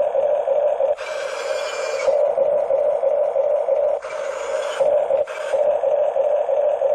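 Radio-controlled Huina D9R model bulldozer running: a steady motor-and-gear whine, with a louder, harsher grinding layer coming in for about a second, once about a second in and again about four seconds in.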